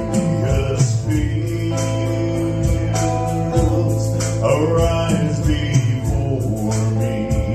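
Live country-gospel band music with guitar, a steady bass line and a held melody; a male voice sings in places.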